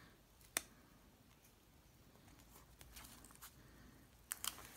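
Near silence broken by a few faint ticks and light taps of fingernails and fingertips pressing a paper sticker onto a planner page: a sharper tick about half a second in and a few more near the end.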